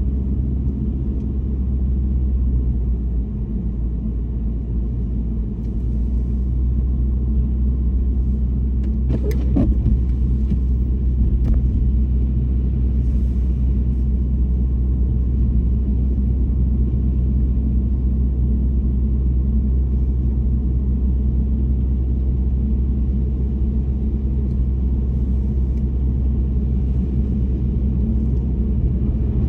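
Steady low rumble of a car driving, road and engine noise. There is a brief sharp click about nine seconds in.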